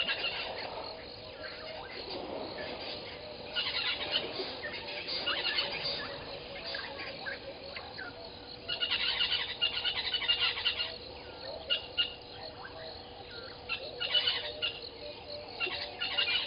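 Birds chirping at a waterhole, in bouts of rapid, high chirps with quieter gaps between them, the busiest bout a little past the middle; a faint steady hum sits underneath throughout.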